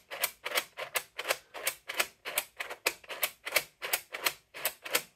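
3D-printed plastic seven-segment mechanical counter worked by hand: its spring-loaded push action is pressed and released over and over, and the mechanism gives a sharp plastic click with each stroke, about four to five clicks a second.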